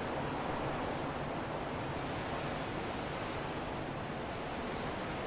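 Steady rushing wind noise, with a low flickering rumble of wind on the microphone.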